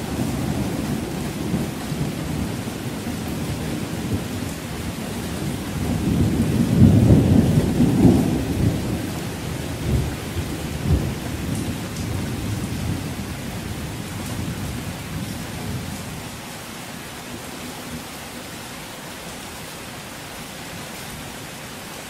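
Distant thunder rumbling over steady rain. The rumble swells to its loudest about seven seconds in, then dies away, leaving the steady hiss of the rain.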